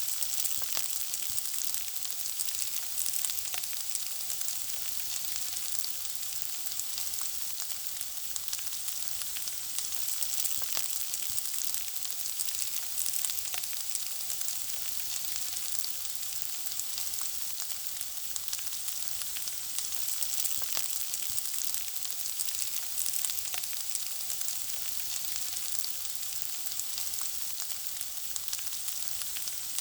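Food frying in hot oil: a steady sizzle with dense, fine crackling and popping.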